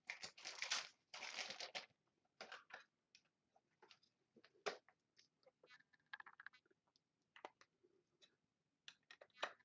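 Faint rustling of trading cards and plastic being handled, then scattered small clicks, as a card is fitted into a magnetic one-touch card holder.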